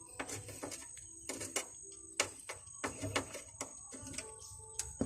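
Irregular sharp clicks and light knocks of a distributor cap being fitted back onto a Suzuki Scrum multicab's distributor, with faint short tones in the background.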